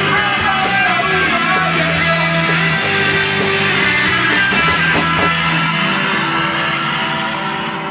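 Live rock band playing electric guitar, electric bass and drums with cymbal crashes. About five and a half seconds in the cymbals stop and the guitars and bass ring on, a little quieter, as the song winds down.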